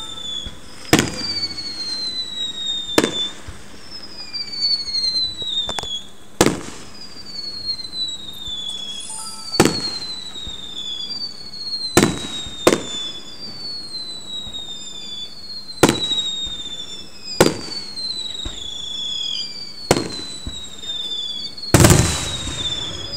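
Aerial fireworks bursting in a string of sharp bangs, one every two or three seconds, with a quick cluster near the end. Between the bangs a high whistling tone falls in pitch over about a second and repeats about every two seconds.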